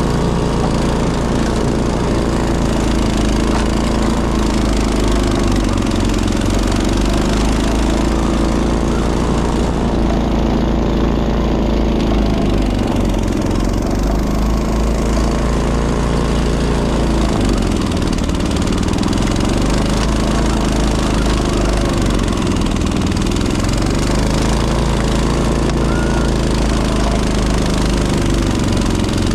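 Honda snowblower engine running steadily, its pitch dipping briefly and recovering about every four seconds as it bogs under the load of snow.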